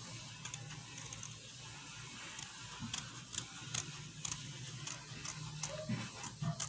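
Scissors snipping through thin green cardboard: a run of short, crisp blade snips starting a couple of seconds in and repeating irregularly as the circle is trimmed.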